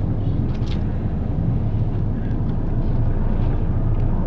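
Low, steady rumble of an approaching diesel train, growing slightly louder, with faint chatter from a waiting crowd.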